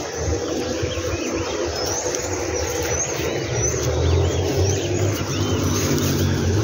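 Birds chirping again and again in short arched calls, over a steady low rumble that grows louder about four seconds in.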